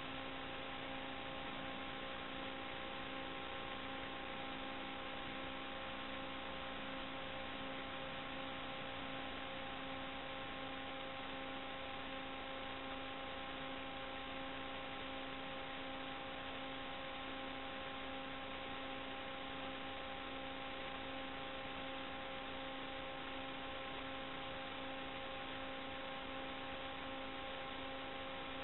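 Steady hiss with a constant hum of several steady tones, unchanged whether the quad is flying or landed: the empty audio channel of an analog 5.8 GHz FPV video receiver, recorded by the DVR.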